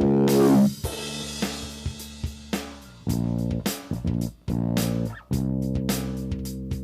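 Band music with guitar, bass and drums: a held chord breaks off under a second in, then the band plays in stop-start chord stabs with sharp drum hits.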